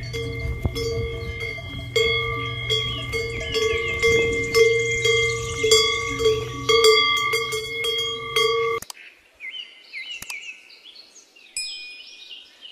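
Many large cowbells on passing cattle clanging and ringing together, as in a désalpe procession. The bells cut off suddenly about nine seconds in, and birds chirp after.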